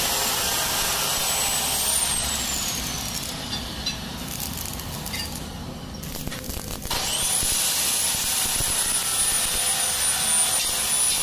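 Stick (arc) welding on a steel gate frame: the electrode's arc hissing and crackling steadily as it runs a weld at the hinge and frame edge, with a thin high whine. It dips a little in the middle and is louder again from about seven seconds in.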